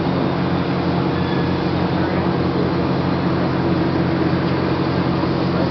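Alaska Railroad passenger train running, heard from aboard: a steady rumble of the wheels and running gear with a constant low hum.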